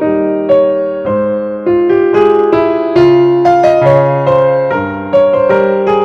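Slow background piano music: notes and chords struck about every half second and left to ring.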